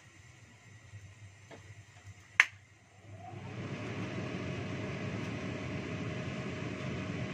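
A few soft clicks, then one sharp loud click about two and a half seconds in, followed by a steady whirr of a small electric motor that builds over about a second and runs on evenly.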